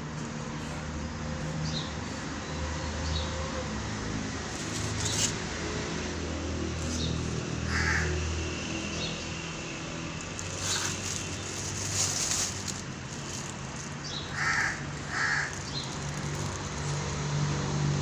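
Crows cawing a few times, short harsh calls with two close together near the end, over a steady low rumble.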